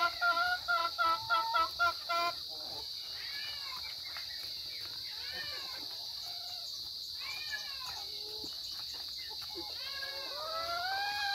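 Chickens calling while pecking at split coconuts: a quick run of short clucks for the first two seconds, then quieter calls that rise and fall, over a steady high-pitched hiss.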